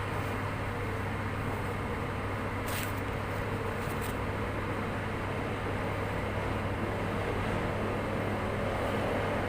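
A steady mechanical hum with hiss, with two faint clicks about three and four seconds in.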